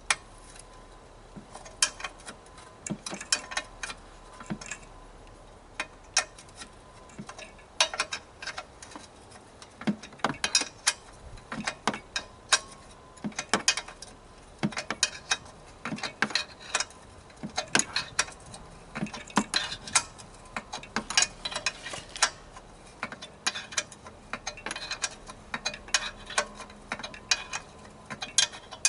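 Hand tools working on the compressor's metal parts: irregular sharp metallic clicks and light taps, sometimes several a second, some with a brief ring.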